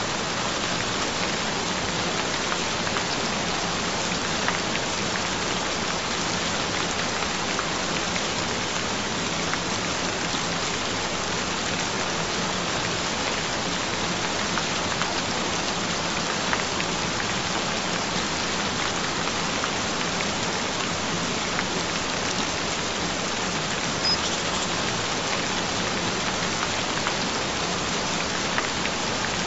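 Steady rain recording: an even hiss of rain with small drop ticks scattered through it. A low steady tone runs beneath it.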